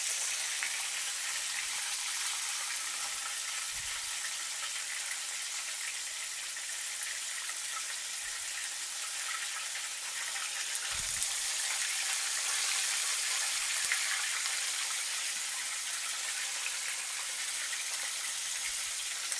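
Chicken thigh pieces in a starch-and-flour coating deep-frying in oil, a steady crackling sizzle near the end of their second fry, when they are almost done. Two soft low knocks come about 4 and 11 seconds in.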